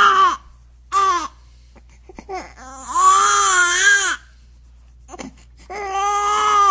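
An infant crying hard: drawn-out wails in four bouts, the longest about a second and a half, with short gasps for breath between them.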